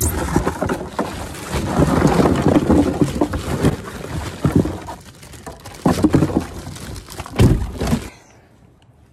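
Ice cubes poured from a plastic bag into a cooler: a loud, dense clatter of ice with the bag crinkling and a few heavier thumps, stopping about eight seconds in.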